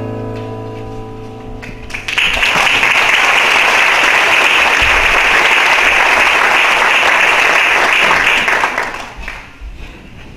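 The last notes of the song's instrumental accompaniment die away, then the congregation applauds for about seven seconds before the clapping fades out.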